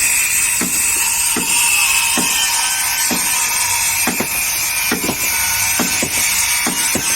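Hammer blows on wood, about one a second with some in quick pairs, over a steady high-pitched whir of machinery.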